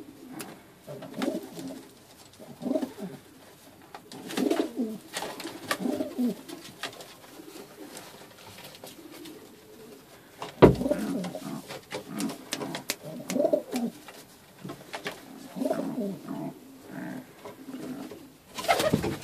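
Pouter pigeons cooing in a wooden nest box, low repeated coos every second or two. A single sharp knock, the loudest sound, comes a little past the middle.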